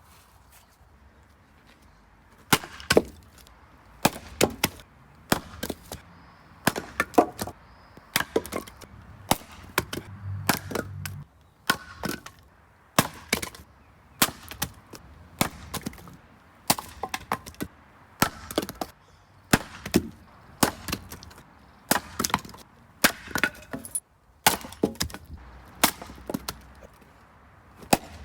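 Firewood being split with an axe, one strike after another at a steady pace of about one every second and a quarter, starting a couple of seconds in. Each strike is a sharp crack, followed by a few smaller knocks.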